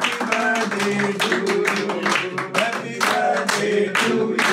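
A man singing with a group of people clapping along in a steady rhythm.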